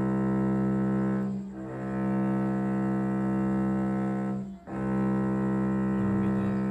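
Cello played with long, full bow strokes on one sustained note, a long-tone bowing exercise for an even, steady sound. The note dips briefly at each change of bow direction, about one and a half seconds in and again a little after four and a half seconds, then carries on at the same pitch.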